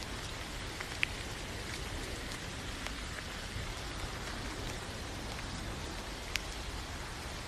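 Steady rain falling: an even hiss of rain on a surface, with a few sharper ticks of single drops standing out, one about a second in and another late on.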